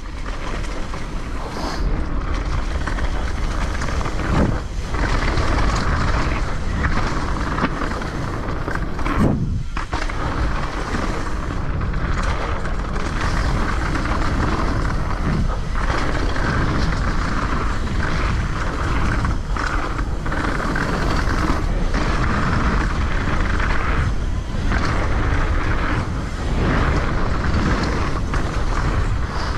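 Wind buffeting the microphone and tyre noise as a downhill mountain bike rolls fast down a road, a steady rush with brief dips.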